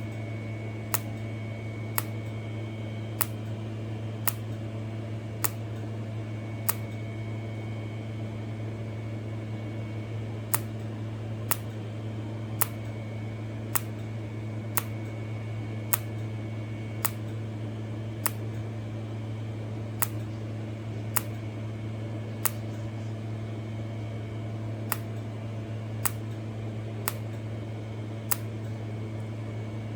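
Micro TIG spot welding of 0.1 mm SUS304 stainless in SPOT mode: each short arc pulse makes a sharp click, about one a second in three runs with two short pauses, over the steady hum of the welding equipment.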